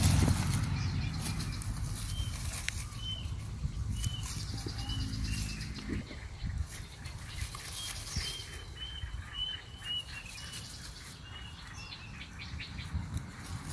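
Puppies scuffling and play-fighting in dry grass, with rustling and scrabbling paws. Through it a bird repeats short, high chirps.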